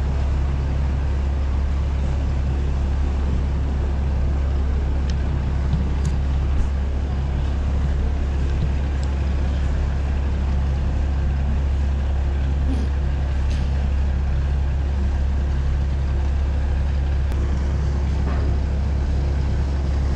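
Steady low hum of a marine engine running, a constant deep drone with a few faint steady tones above it.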